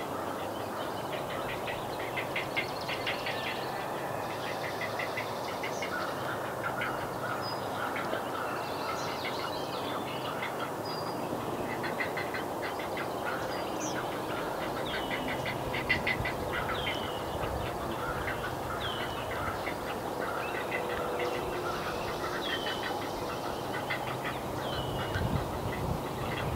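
Great blue heron nestlings' begging calls: rapid trains of clacking notes, repeated over and over. Short falling whistles repeat every second or two in the second half.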